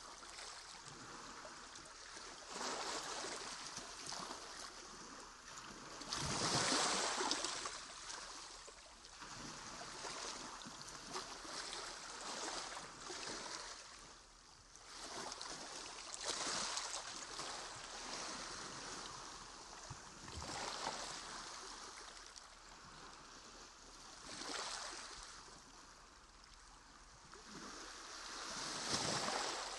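Water sloshing and splashing around kayaks in several surges, the loudest about six seconds in.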